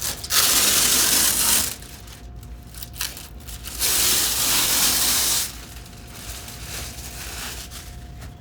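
Blue protective plastic film being peeled off a window, two long tearing, rustling pulls each lasting about a second and a half.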